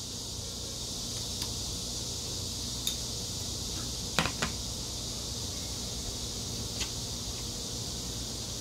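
Metal chopsticks clicking lightly against ceramic bowls and plates a few times, the loudest pair of clicks about four seconds in, over a steady background hiss.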